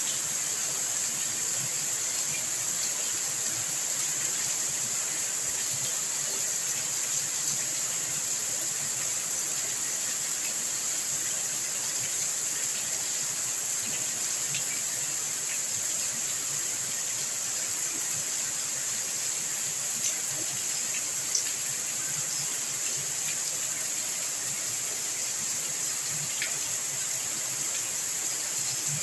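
Steady rain falling: an even hiss throughout, with scattered faint drip ticks.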